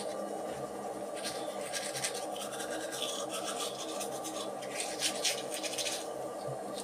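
Manual toothbrush scrubbing teeth in quick back-and-forth strokes, a scratchy brushing that comes in short bouts.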